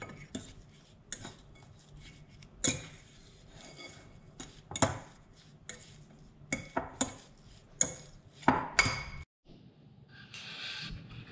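A utensil knocking and clinking against a bowl in a dozen or so separate sharp knocks, as glutinous rice flour dough coloured with pandan extract is mixed. The knocks cut off abruptly, and a short rustle follows near the end.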